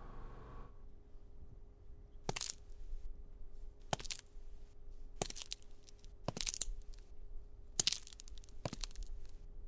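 About seven short crunching noises, irregularly a second or so apart, each a quick cluster of crackles, over a faint steady hum. A humming tone cuts off in the first second.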